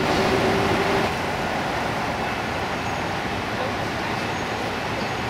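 Steady city traffic noise from the streets below, an even wash of passing vehicles, with a faint held tone in the first second.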